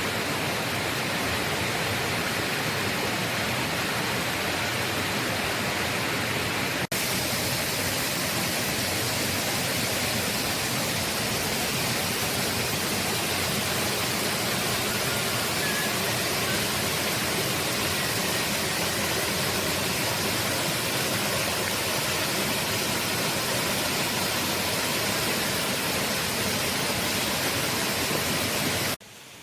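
Steady rushing water, an even hiss at full strength, broken by a brief dropout about seven seconds in and stopping abruptly near the end.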